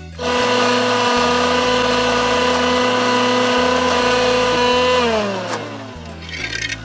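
Electric mixer grinder running steadily, grinding whole spices and garlic with water into a paste, with a steady motor whine; it is switched off about five seconds in and winds down with a falling whine.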